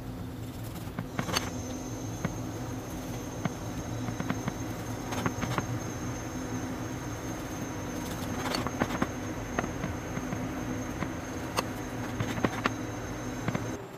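A cleaver knocking on a wooden cutting board as raw chicken wings are cut, about eight irregular sharp knocks, over a steady low hum and a faint high-pitched whine.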